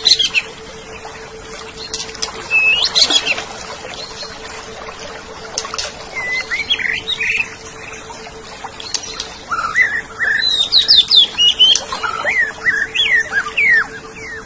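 Cucak ijo (greater green leafbird) singing in short bursts of whistled, sliding notes, sparse at first and busiest in the second half, over a steady low hum.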